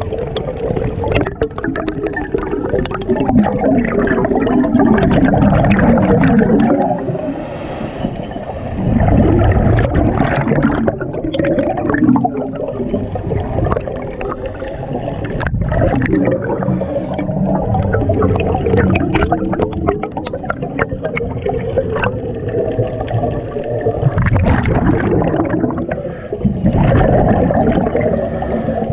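Scuba diver's breathing heard underwater: regulator breaths and rumbling exhaust bubbles, swelling and easing every few seconds.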